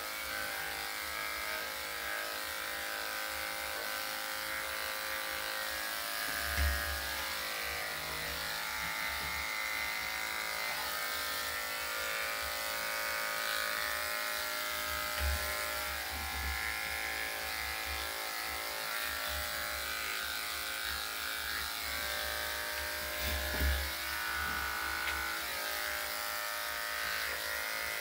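Electric dog grooming clippers running with a steady, even buzz, with a few soft low thumps.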